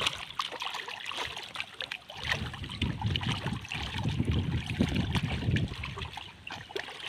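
Lake water splashing and sloshing as people wade and drag a fine mosquito net through it, with many small sharp splashes. A low rumble joins from about two seconds in.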